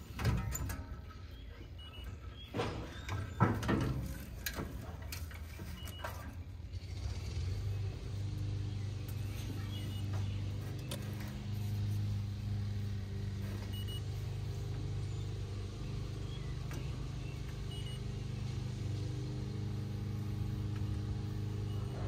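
Metal knocks and rattles from handling the fan guard on top of an outdoor air-conditioner condenser, loudest in the first few seconds. After that comes a low steady hum with several held tones.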